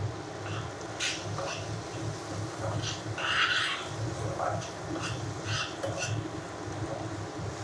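Grey plastic spatula stirring onions and capsicum through sauce in a frying pan: scattered scrapes and clicks against the pan, with a longer, louder scrape about three seconds in, over a steady low hum.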